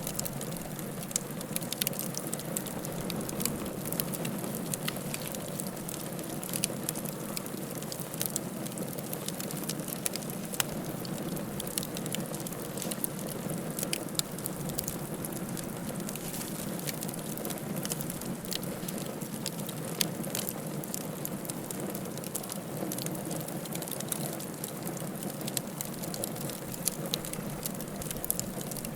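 Fire crackling in a fireplace: a steady hiss with frequent sharp pops and snaps at irregular intervals.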